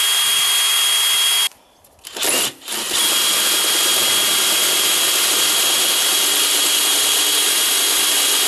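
Cordless drill with a hole saw cutting into a plastic downpipe: a steady high motor whine with cutting noise. It runs briefly, stops about a second and a half in, blips once, then runs steadily again from about three seconds in.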